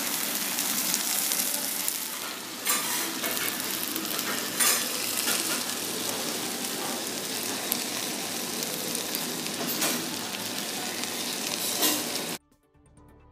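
Okonomiyaki and yakisoba sizzling on a hot teppan griddle, a steady frying hiss with a few light clicks now and then. It cuts off suddenly about a second before the end.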